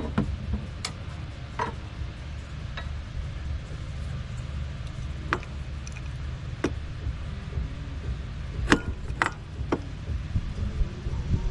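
Scattered light clicks and taps of small tools and carburetor parts being handled during disassembly, over a steady low hum.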